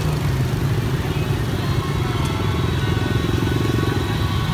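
Many motorbike and scooter engines running in dense, slow street traffic, a steady low rumble. One engine note swells around three seconds in.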